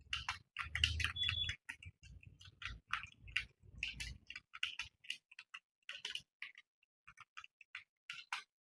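Typing on a computer keyboard: irregular key clicks, several a second, thinning out after about five seconds and stopping just before the end.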